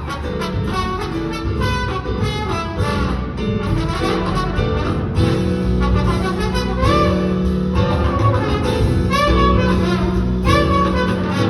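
Live pit band of a stage musical playing an instrumental passage: jazzy, with brass prominent over a steady beat.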